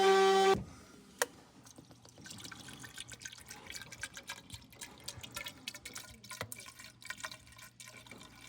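A loud, steady pitched whine cuts off suddenly about half a second in. Irregular crackling drips and trickling of leaking water follow.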